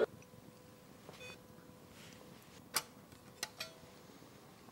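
A few faint, sharp metallic clicks as a small hex screwdriver works the screws of a metal cover and the cover is handled, over a faint steady electronic tone.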